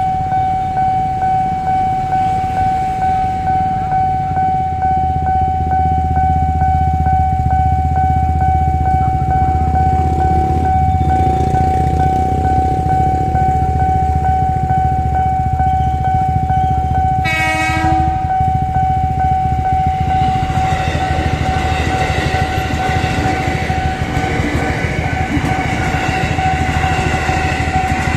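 Railway level-crossing alarm ringing as one steady tone while a train approaches. The low rumble of the train builds, its horn gives a short blast about two-thirds of the way in, and then the rushing noise of the train passing over the crossing takes over near the end.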